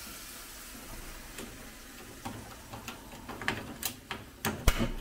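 Irregular light clinks and taps of a metal fork against a sauce bowl and the stainless steel skillet as sauce is scraped into the pan, over a faint sizzle from the low flame. The clinks come more often and louder toward the end.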